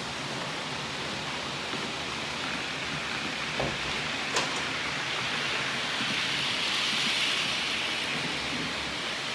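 Model trains rolling along the layout's track: a steady rush of small metal wheels on the rails, growing louder in the second half as a locomotive and its wagons pass close by. Two short clicks near the middle.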